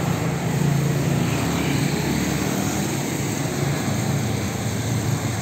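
Road traffic: the steady engine drone of passing cars and motorcycles.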